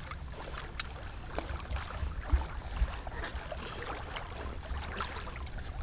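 Wind rumbling on the microphone, with scattered light splashes and small knocks and one sharp click under a second in.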